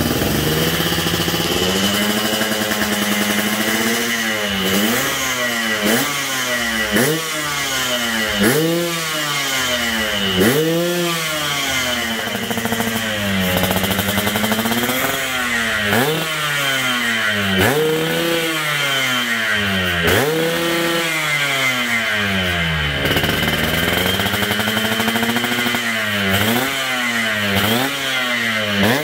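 Yamaha RX-King's 135 cc single-cylinder two-stroke engine being revved in repeated throttle blips, the pitch rising and falling every second or two, with a few longer, slower swells.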